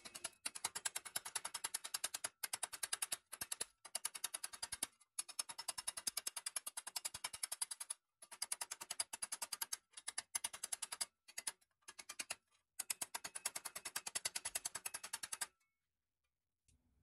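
Hammer tapping rapidly on the bent edge of a pressed-steel Tonka toy truck cab held against a steel vise jaw, straightening the metal. The taps come in quick runs of several a second with short pauses between them, and stop shortly before the end.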